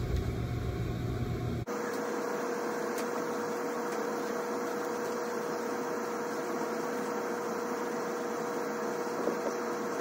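Steady background hiss with a faint constant hum. The character changes abruptly about two seconds in, when a lower hum drops out and a steady higher tone remains.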